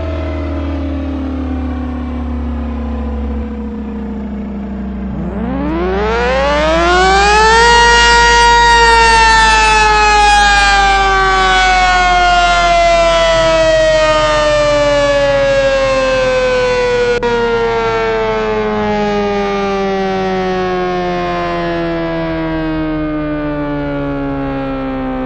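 ACA P-15 siren cycling: a falling tone as it winds down at first, then a fresh wind-up about five seconds in that climbs steeply to full pitch in under three seconds, followed by a long, slow wind-down falling in pitch. A steady low hum runs beneath it.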